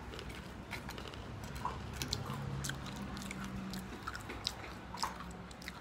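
A person chewing crispy dried fruit and vegetable chips with the mouth closed: a run of small, irregular crunches.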